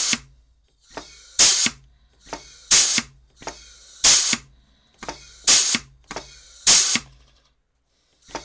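Chicago Pneumatic CP351 pneumatic rivet squeezer cycled about six times, roughly once a second and a bit. Each stroke is a small click and a short hiss of compressed air, then a loud blast of exhaust air as the jaws release. There is a pause near the end.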